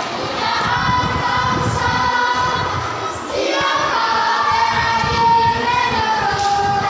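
Children's choir singing, holding long notes, with a brief break and a new phrase starting about three seconds in.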